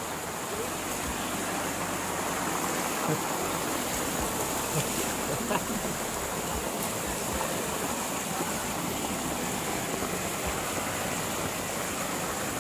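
Muddy rainwater runoff rushing along a channel it has cut through the soil, a steady rushing of flowing water.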